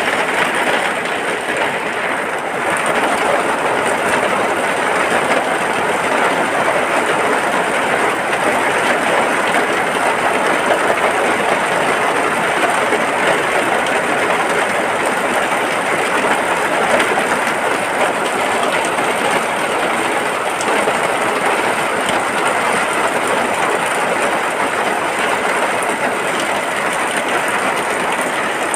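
Heavy rain falling steadily: a loud, dense, even hiss with no let-up.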